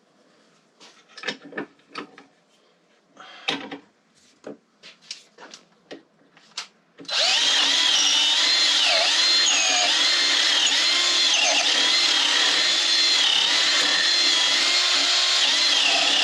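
Small clicks and knocks of parts being handled, then a power drill starts about halfway in and runs steadily, its pitch dipping briefly a few times as it comes under load.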